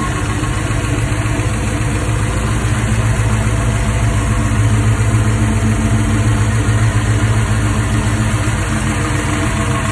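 1967 Dodge Dart's stroker V8 idling steadily, warmed up, with a deep, even exhaust note.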